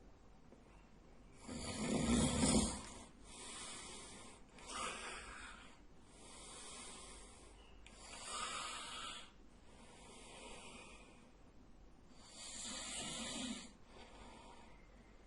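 A sleeping man snoring: a run of about eight noisy, rasping breaths, each a second or so long. The loudest comes about two seconds in, with another strong one near the end.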